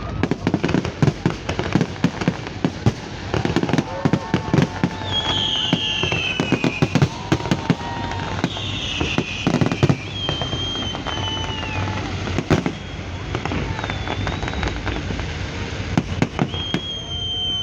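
Fireworks display: a dense, continuous run of bangs and crackles from bursting shells, with several high falling whistles and voices of a crowd underneath.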